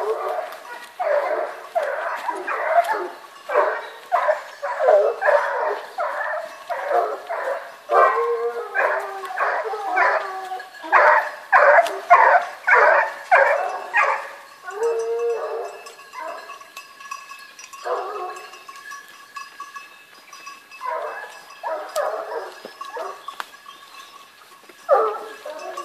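Hunting dogs baying in the brush, typical of a pack giving tongue on wild boar, with about two calls a second for the first half before thinning to scattered barks.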